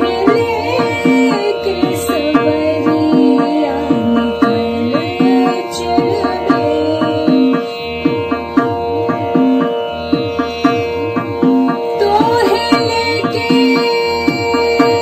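Hindustani semi-classical vocal music: a woman singing a dadra in raag Mishra Pilu over a sustained drone, with tabla keeping a steady, even rhythm.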